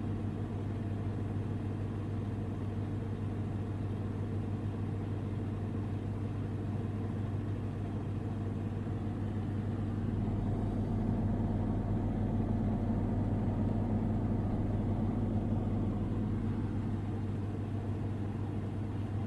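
Samsung Ecobubble washing machine with digital inverter motor spinning its drum at speed in the spin cycle: a steady hum that grows louder about halfway through.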